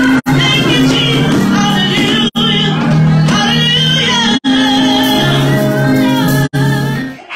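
A gospel song, a woman singing into a microphone over held low accompaniment notes, amplified in a church hall. The sound drops out briefly four times, about every two seconds, and cuts off suddenly near the end.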